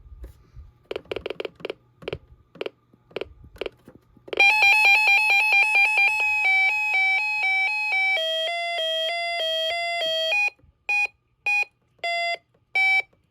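Weather alert radio running its siren test. A few short beeps come first, then about four seconds in a loud electronic alarm starts, its tones rapidly alternating and stepping up and down in pitch. Near the end the alarm breaks into short separate beeps.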